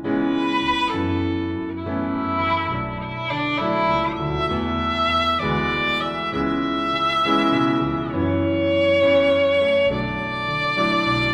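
Background music: a violin melody over a sustained low accompaniment, its notes changing every half second or so.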